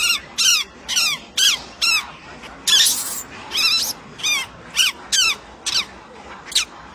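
A monkey giving a rapid series of short, high squealing calls, each a quick rise and fall in pitch, about two to three a second. One harsher, hissier squeal comes about three seconds in.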